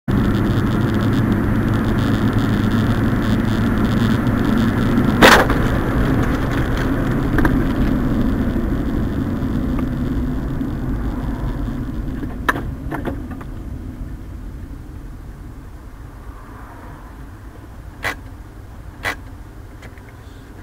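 Road and engine noise inside a car's cabin while driving, with one sharp loud bang about five seconds in and a smaller knock a couple of seconds later. The noise dies down over the second half, leaving a few faint clicks.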